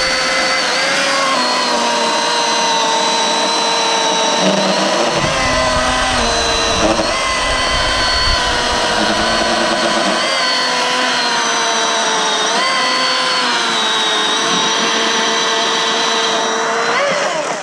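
Milwaukee M18 Fuel cordless chainsaw, its brushless motor and chain running steadily through a log, the whine sagging a little in pitch under load and picking back up. Near the end the pitch rises briefly and then the saw stops.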